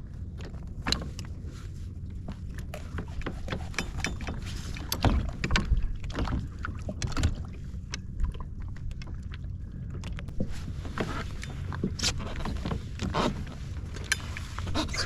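Irregular knocks, taps and clatter of handling on a kayak, with the loudest thumps about a third of the way in, over a steady low rumble of wind on the microphone.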